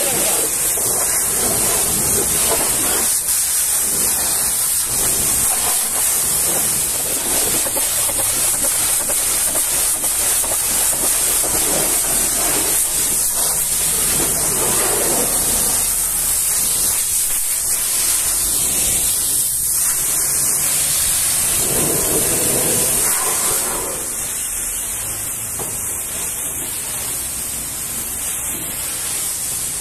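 High-pressure washer jet spraying water onto a truck's wheel and bodywork: a steady loud hiss with splashing. About three-quarters of the way through it becomes quieter as the spray moves onto the flat side panel of a box trailer.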